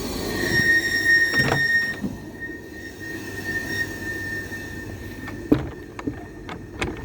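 Creda 37761 appliance running with a steady high-pitched squeal over a low rumble, loudest in the first two seconds, with a few sharp knocks or clicks in the second half. This is the abnormal running noise that is the machine's fault.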